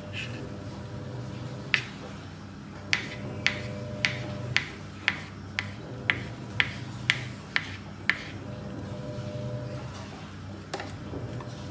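Knife chopping on a cutting board: about a dozen sharp, even strokes, roughly two a second, which stop about two-thirds of the way through. A steady low hum runs underneath.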